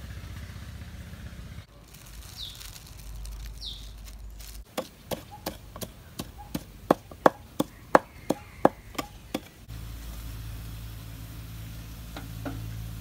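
Wooden pestle pounding in a clay mortar: a run of about fifteen sharp knocks in the middle, roughly three a second. A steady low hum lies under the start and the end, and two short falling chirps come before the pounding.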